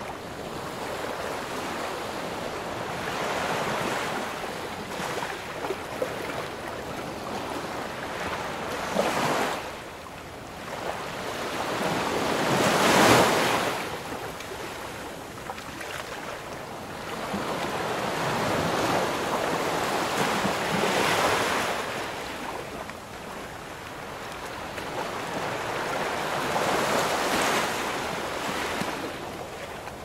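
Rushing water that swells and ebbs every few seconds, loudest a little before halfway through.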